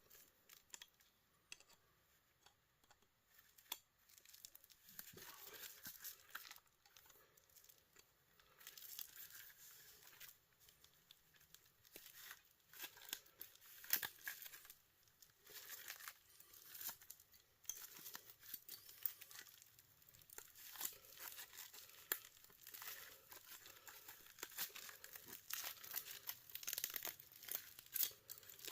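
Faint, irregular clicking, scraping and crinkling as metal parts are pried and pulled out of an electric heater being taken apart by hand.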